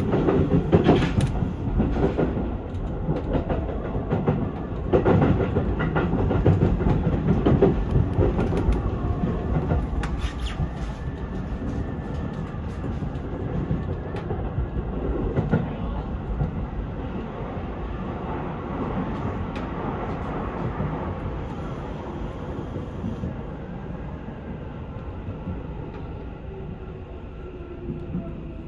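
Seibu 6000-series electric train heard from inside the driver's cab, its wheels clattering over rail joints and points, loudest in the first ten seconds. The running noise then eases off as the train slows for the station, with a falling whine near the end.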